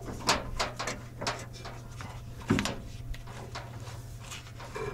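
Scattered small metallic clicks and clunks of hardware being handled as the negative cable's nut and washer are worked off an inverter terminal, with a heavier knock about halfway through, over a steady low hum.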